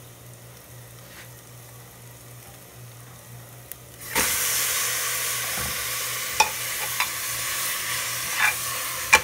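Raw chicken breast dropped into hot clarified butter in an aluminium pressure-cooker pot: after a quiet start with a low steady hum, a loud sizzle breaks out about four seconds in and keeps going. A steel spoon clinks against the pot a few times as the chicken is stirred in.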